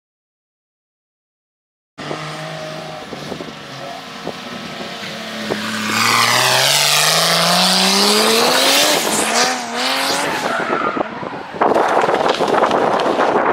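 After about two seconds of silence, a Toyota GT86 drift car's engine revs with a rising pitch while its tyres squeal as it drifts. The tyre noise grows louder near the end.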